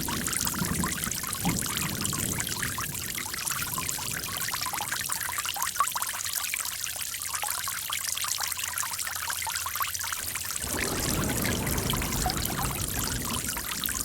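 Running water trickling and splashing steadily, like a small stream. A deeper, fuller rush comes in about two-thirds of the way through.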